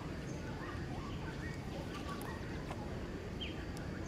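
Several birds chirping, short calls scattered at different pitches, over a steady low background noise.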